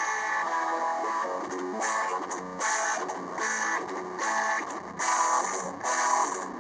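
Rock song played on electric guitar in F# tuning, with strummed chords and bright crashes recurring every second or so.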